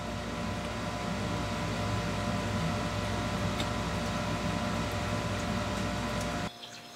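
A steady mechanical hum with a low rumble and a few held tones, like a motor or fan running, cutting off suddenly about six and a half seconds in.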